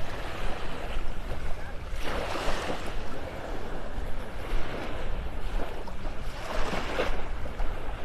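Small Gulf of Mexico waves lapping and washing up the sand, swelling twice, about two seconds in and again about seven seconds in, with a steady low rumble of wind on the microphone.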